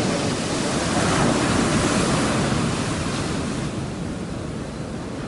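Ocean surf on the beach: a wave's rush swells about a second in, then eases off after about three and a half seconds.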